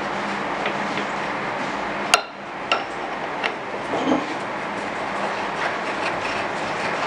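Steady background noise with a handful of sharp clicks and knocks, the loudest about two seconds in, from hands handling the capstan feed handles of a stopped Powerbor PB100E magnetic drill.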